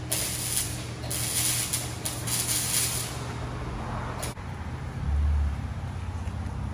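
Short hissing bursts of air in the shop, then, after about four seconds, the straight-piped Honda Accord's engine running at idle with a low, steady exhaust note and one brief louder swell about a second later.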